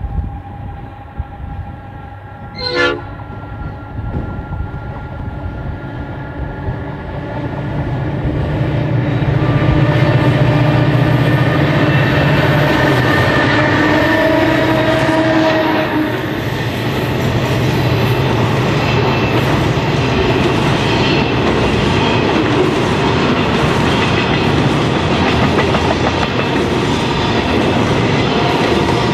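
Two Clyde/EMD G-class diesel locomotives approach and pass at speed hauling empty grain hopper wagons. The engines grow louder from about eight seconds in and are loudest for the next several seconds. After that comes a steady rumble of the hopper wagons rolling by, with the clickety-clack of their wheels over the rail joints. A short high toot sounds about three seconds in.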